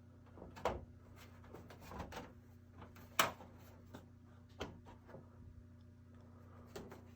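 Scattered light knocks and clicks of the TV's plastic back panel and parts being handled as the panel comes off, the loudest knock about three seconds in.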